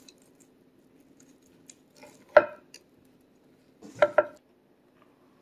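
Knife and fork clinking and scraping on a ceramic dinner plate while cutting chicken: one sharp ringing clink about two seconds in, then two more close together about four seconds in, over a faint low hum.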